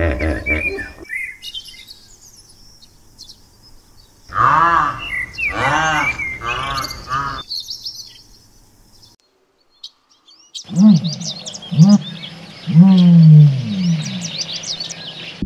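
Animal calls: three loud rising-and-falling low calls about a second apart, a quiet pause, then more low calls under a run of high, quick bird chirps near the end.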